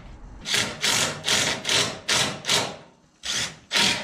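Cordless drill/driver running in winch mounting bolts in a string of short rasping bursts, two or three a second, with a brief pause about three seconds in.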